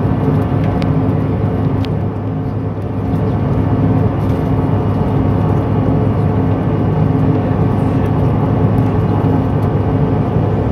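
Cabin noise of a Bombardier CRJ700 regional jet just after takeoff: its rear-mounted GE CF34 turbofans give a loud, steady engine noise with a constant hum, heard from inside the passenger cabin.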